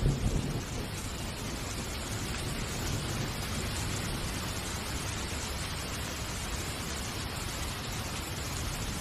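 Steady hiss with a low rumble underneath, a constant noise bed with no distinct events.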